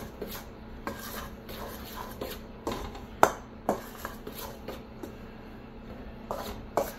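A utensil scraping and clicking against a stainless steel mixing bowl as shredded cheddar is stirred into dry flour mix. The strokes are irregular, with one sharper knock about three seconds in.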